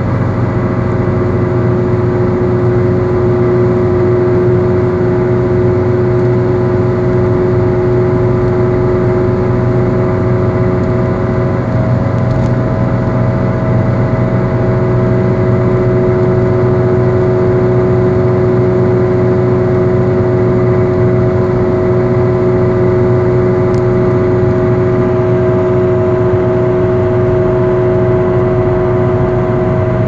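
Inside a car cruising at highway speed, a worn wheel bearing drones steadily over the engine and tyre noise. It is a bearing in the late phase of failure, due for replacement.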